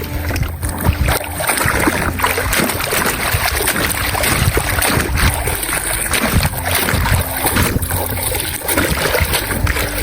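Water splashing and sloshing in uneven bursts, going on throughout.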